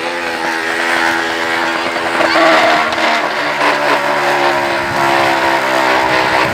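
Crushed plastic bottle wedged against a turning bicycle tyre, buzzing like a small motorbike engine. A steady drone, with a lower tone joining about three seconds in.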